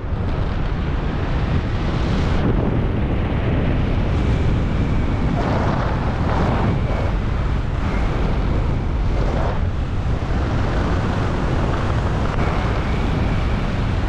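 Wind rushing over a helmet-mounted camera's microphone during parachute canopy flight: a loud, steady low rumble that swells in gusts a few times.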